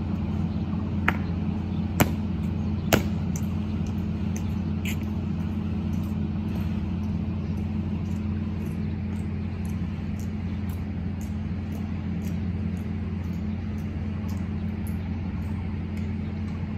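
Three sharp clacks about a second apart near the start, which fit the metal-shod boots of ceremonial honor guards striking the pavement in a slow march. A steady low mechanical hum runs underneath.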